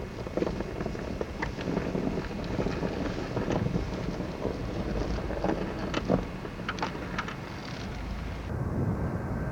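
Steady low rumbling noise with wind on the camcorder microphone and a few faint clicks, changing in tone near the end.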